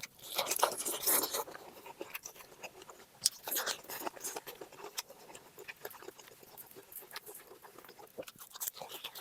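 A person chewing and crunching cooked pork close to the microphone, with many short wet clicks and crunches. It is loudest in the first second and a half and again about three to four seconds in.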